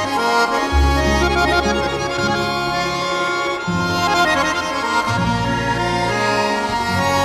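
Accordion music: a tune over held bass notes that change every second or so.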